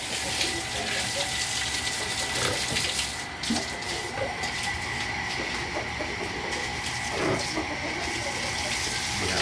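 Water running steadily in a concrete pig pen, with a thin steady high tone underneath.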